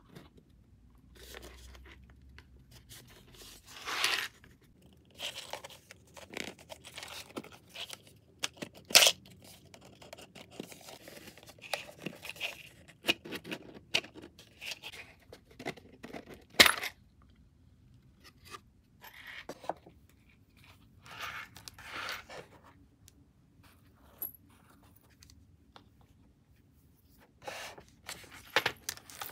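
A rigid cardboard box being handled and worked open: the lid scraping and rubbing against the base in short, separate strokes, with a couple of sharp taps partway through. Near the end there is light rustling of a card tag and a metal chain.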